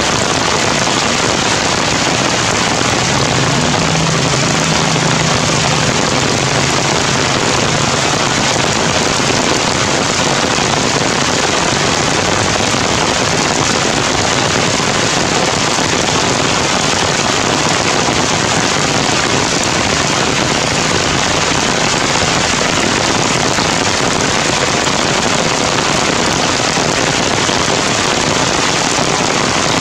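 Heavy rain pouring steadily through forest trees, an even, unbroken hiss of falling water.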